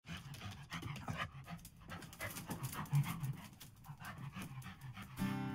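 A dog breathing and panting in quick, uneven puffs close to the microphone. Acoustic guitar music comes in near the end.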